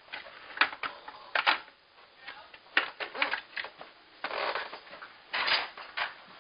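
The plastic shell halves of a Pinokio electronic paintball loader being pried and pulled apart by hand: irregular plastic clicks and knocks with short scraping rustles, the loudest near the end.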